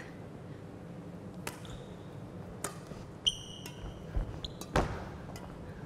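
Badminton rally in a gym: a series of sharp racket hits on the shuttlecock, the loudest near the end, with a short squeak of a shoe sole on the wooden floor about midway.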